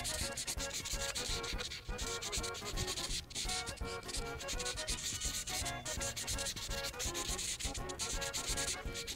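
Prismacolor marker's brush tip scrubbing quickly back and forth on paper, a continuous scratchy rubbing of many short strokes as a large area is filled in with colour.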